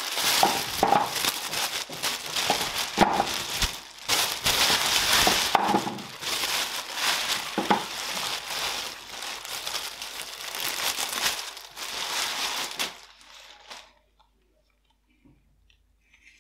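Paper towel and a thin plastic bag crinkling and rustling as gloved hands unwrap and open them, a dense run of crackles that stops about thirteen seconds in.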